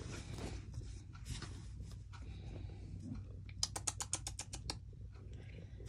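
Domestic cat purring in a low, steady rumble while she paws through a pile of fabric scraps. About halfway through comes a quick run of about ten light clicks and rustles from the scraps being pawed and pulled.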